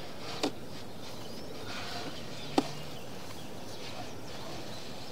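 Sewer inspection camera being pushed through a drain pipe: a steady low rushing noise broken by two sharp clicks, one about half a second in and a louder one about two and a half seconds in.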